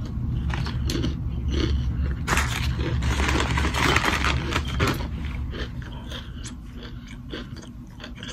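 Paper smoothie cup being handled and tipped up to drink, with a rustling, scraping noise loudest from about two to five seconds in.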